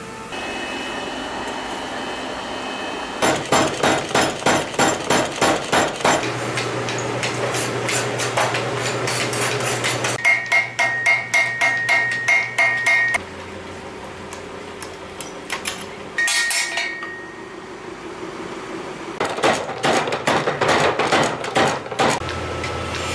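Hammer blows on red-hot steel on an anvil as a katana blade is forged, coming in runs of about three to four strikes a second. About ten seconds in, the blows ring with a clear metallic tone. Near the end a run of fast strikes comes from a mechanical power hammer drawing out the blade's tip, with a steady low hum underneath throughout.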